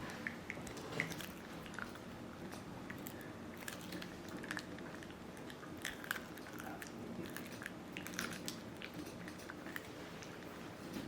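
A Shiba Inu chewing a dried Achilles tendon chew: irregular crunching and gnawing cracks throughout.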